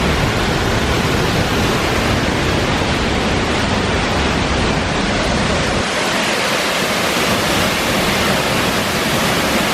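Loud, steady rush of a waterfall heard close up; the deepest rumble eases about six seconds in.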